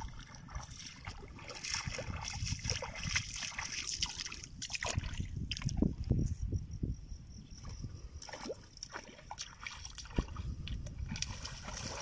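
Footsteps wading through shallow muddy water, with irregular sloshes and splashes.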